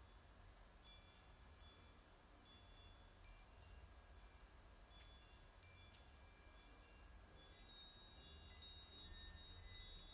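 Very faint background music of sparse, high chiming notes like small bells, growing more frequent and overlapping near the end, over a low steady hum.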